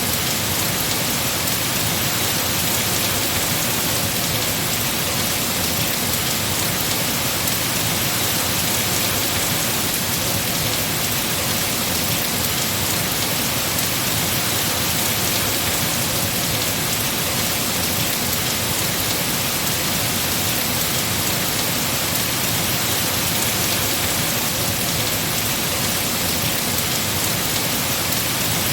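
Heavy rain falling on trees in a steady, even hiss.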